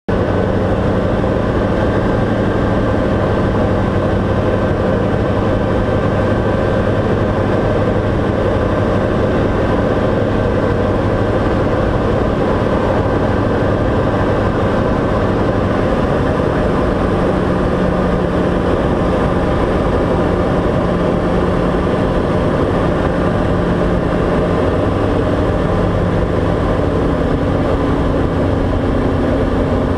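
Diamond DA40's four-cylinder piston engine and propeller droning steadily, heard inside the cabin on final approach. The engine note shifts in pitch about halfway through and again near the end.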